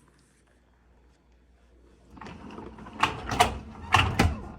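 Dishwasher's bottom rack being put back in and slid along its track, rattling, with several sharp knocks in the last second and a half as it settles into place.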